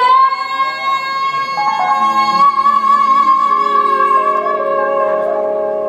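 A live band, with a singer holding one long high note over sustained lower chords that come in about two seconds in.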